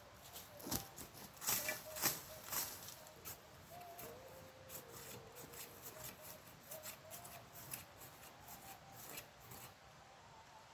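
Mason's trowel scraping and digging into soil to make a planting hole, a run of short scrapes and clicks, busiest in the first few seconds and then lighter and more scattered.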